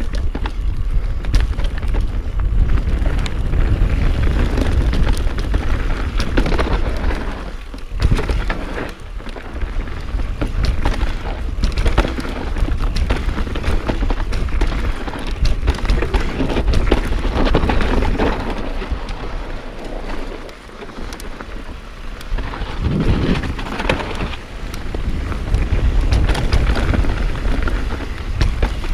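Mountain bike ridden fast down a dirt trail: wind buffeting the chest-mounted action camera's microphone, with a heavy rumble, tyre and trail noise, and frequent sharp clicks and knocks from the bike over bumps and roots.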